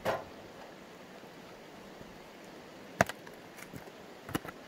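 A wooden knock as the squared log is shoved on the steel frame of the chainsaw mill. About three seconds in comes a loud, sharp click, followed by a few lighter clicks of the mill being handled.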